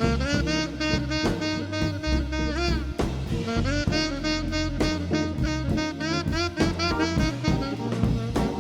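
Background jazz/swing music with saxophone and brass over a steady drum beat.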